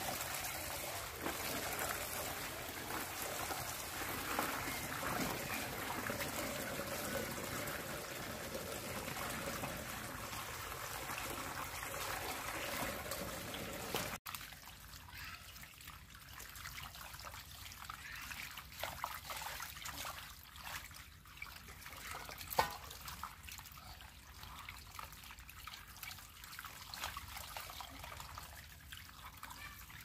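Water trickling and pouring. For about the first half it is a steady, even stream; after an abrupt cut it becomes a quieter, uneven trickle with small splashes and one sharp tap a little past the middle.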